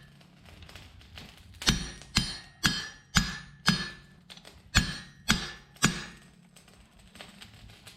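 Hand hammer striking hot steel on an anvil: nine ringing blows about two a second, starting a couple of seconds in and stopping about two seconds before the end, as a pin is forged down.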